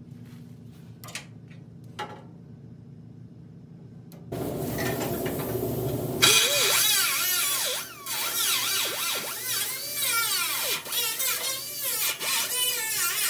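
Air-powered grinder cutting into a steel truck radiator support: a sudden hiss as it starts about four seconds in, then a loud whine whose pitch keeps dipping and rising as the wheel bites the metal. Before it, only a low steady hum with a couple of faint clicks.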